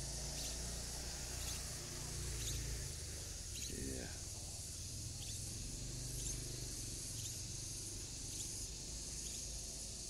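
Steady high-pitched insect chorus of crickets, with short high chirps repeating about once a second and a brief lower call about four seconds in.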